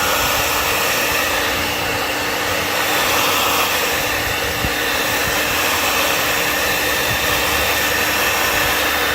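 Electric heat gun running on its second power setting: a loud, steady rush of blown air from its fan with a faint hum underneath.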